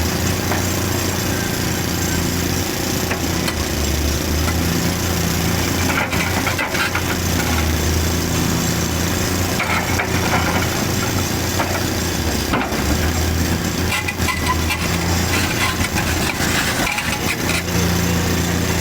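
Large excavator's diesel engine running steadily, its note rising and falling as it works, with a few scattered knocks and scrapes of stone.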